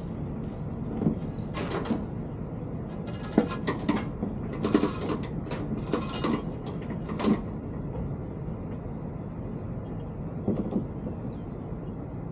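A series of sharp metallic clanks and rattles, bunched in the first seven seconds and once more near the end, over a steady low rumble. This fits steel hardware being handled on a heavy-haul lowboy trailer.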